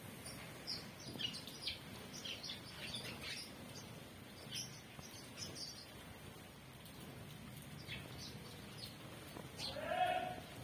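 Small bird chirping in quick short notes, thickest in the first few seconds and scattered after. Near the end comes a louder, drawn-out call with a slight rise in pitch.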